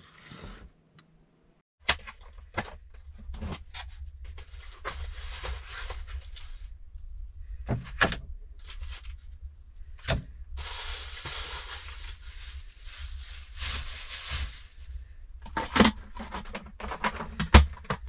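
Plastic bag crinkling in long stretches, with clacks of a plastic food container and its lid being handled, over a steady low hum.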